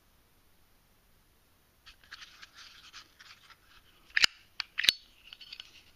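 Brushed-steel Zippo lighter being handled and opened, starting about two seconds in: rubbing and scraping of metal in the hands, then two sharp metal clicks a little over half a second apart, followed by lighter rattling.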